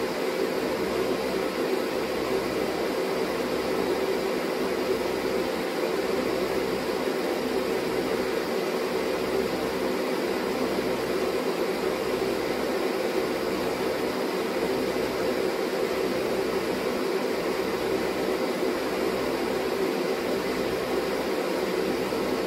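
A steady, unchanging mechanical whir with a hum in the lower middle range, like a fan running.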